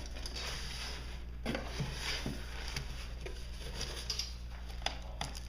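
A cardboard product box being opened and handled: scattered taps, scrapes and rustles of cardboard, over a steady low electrical hum.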